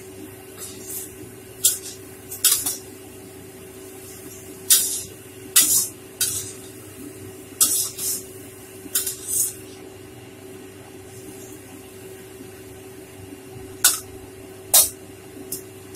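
Vegetables sizzling in a hot steel pan while a metal spatula scrapes and tosses them in short, sharp strokes, several in quick succession and then a couple more near the end.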